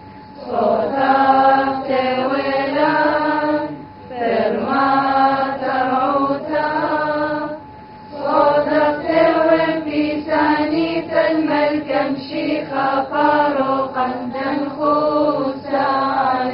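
Christian liturgical chant sung with long held notes in phrases, with brief breaks about four and eight seconds in.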